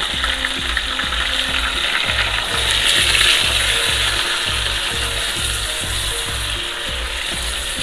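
Raw chicken pieces sizzling as they fry in hot oil with browned onion, ginger and garlic in a steel pot, stirred with a wooden spoon. Beneath the sizzle runs a low pulsing about twice a second.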